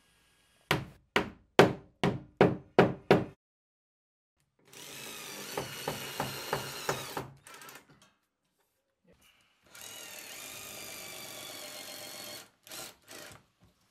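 About eight sharp knocks in quick succession, then a cordless drill driver running twice for two to three seconds each, driving screws through the shower enclosure's aluminium wall channel into the tiled wall, with two short blips of the trigger near the end.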